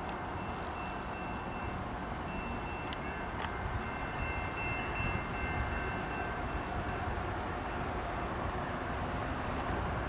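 Eastbound intermodal freight train rolling by with a steady rumble, with thin high-pitched squealing tones from the wheels coming and going.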